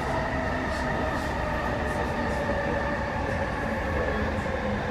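Metro train running, a steady rumble with a whine whose pitch slowly falls as the train slows.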